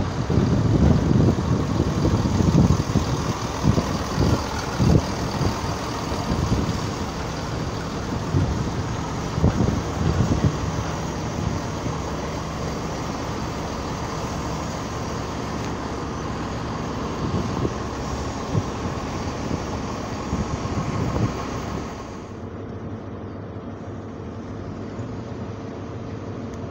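A ScotRail diesel multiple unit rumbling along the platform, its engine and wheels making a steady drone broken by irregular low thumps. About 22 seconds in the sound cuts to a quieter, steady hum of diesel trains standing in the station.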